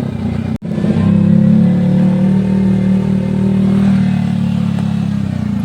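Yamaha R15 V3's single-cylinder engine running steadily under way, with a deep, bassy note. The sound breaks off for an instant about half a second in, then comes back a little louder.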